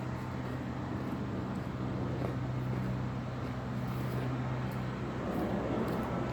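Steady machine hum with a low drone that weakens about five seconds in.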